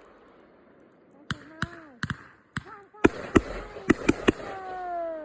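Sunwing Melted Neon 500 g fireworks cake firing: a run of about ten sharp bangs, irregularly spaced and coming quicker in the second half. A long falling pitched sound runs through the last second.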